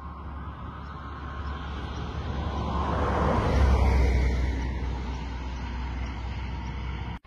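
A vehicle passing by: its noise swells to a peak about three and a half seconds in and then fades, over a steady low rumble. The sound cuts off suddenly near the end.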